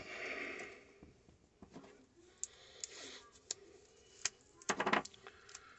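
Hand assembly of a ceiling-fan generator as the magnets are fitted into place: a rustle at the start, then scattered sharp clicks and a brief clatter just before the end.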